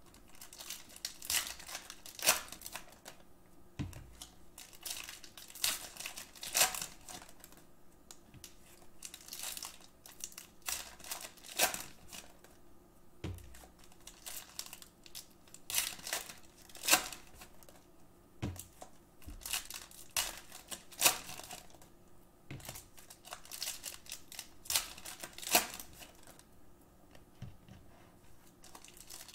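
Foil wrappers of Panini Optic retail basketball card packs being torn open and crinkled by hand, in irregular short crackles every second or two.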